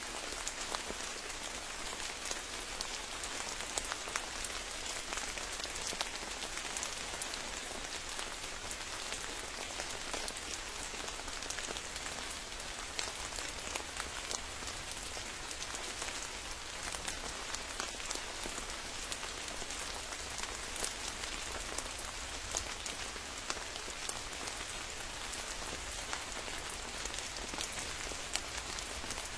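Steady rain falling, with many close, distinct drops pattering on surfaces over an even hiss.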